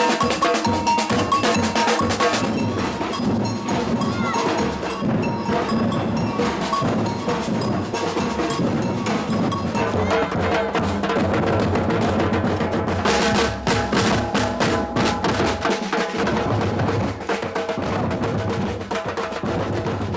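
Batucada samba percussion ensemble playing a dense, steady rhythm on drums.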